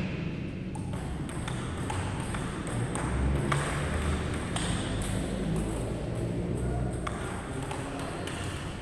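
Table tennis rally: the ball clicking off the bats and the table about twice a second, over a steady low background rumble.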